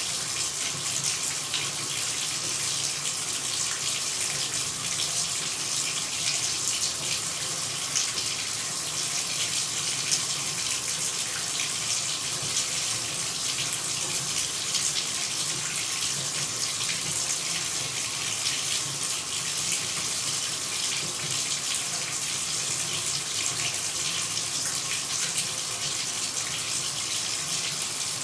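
Running water pouring steadily, an even, unbroken hiss.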